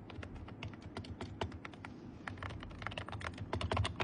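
Typing on a Magegee membrane keyboard: a rapid, uneven run of soft key clicks, getting faster and louder near the end.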